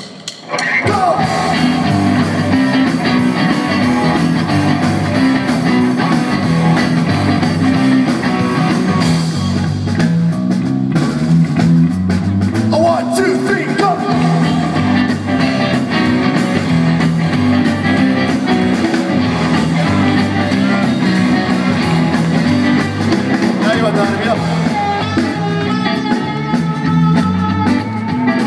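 Live rock band playing through amplifiers: two electric guitars, bass guitar and drum kit. There is a short break in the music right at the start.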